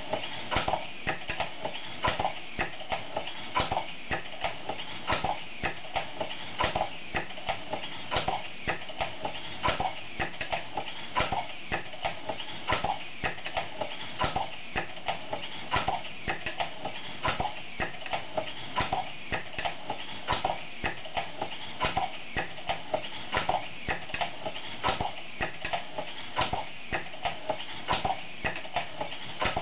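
Three hobby servos, driven by NE555 timer circuits, swinging an aluminium arm back and forth: a steady whir with a quick, uneven run of clicks and ticks, several a second.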